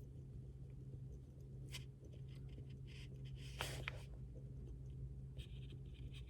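Pen writing on paper: faint, scattered scratching strokes, with a couple of louder strokes around two and four seconds in and a busier run of writing near the end, over a steady low hum.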